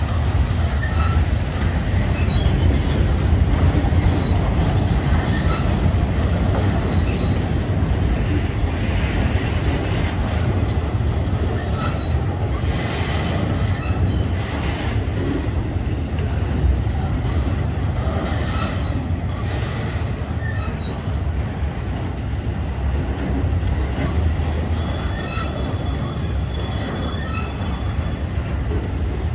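Freight cars of a long manifest train rolling past: a steady low rumble of wheels on rail, with short high wheel squeals now and then.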